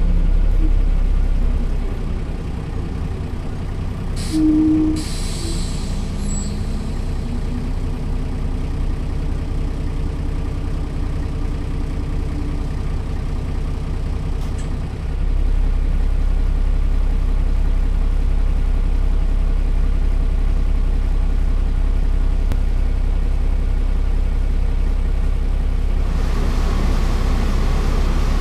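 Mercedes-Benz O 405 city bus standing with its diesel engine idling, a steady low rumble. A short hiss of compressed air comes about four to six seconds in, and about halfway through the engine note steps up louder and deeper.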